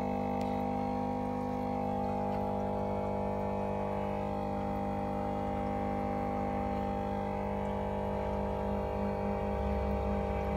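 A motor hums steadily with a deep drone. About eight seconds in it grows louder and deeper, with a pulsing throb.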